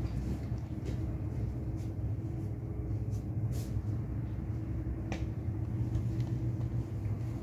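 Steady low hum and rumble, with a few faint clicks.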